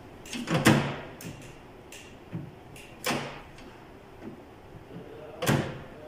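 Sharp plastic clicks and knocks from a microwave oven's door latch and interlock switches being worked by hand, a string of them with the loudest about a second in and another near the end. The door switch is the one suspected of not working.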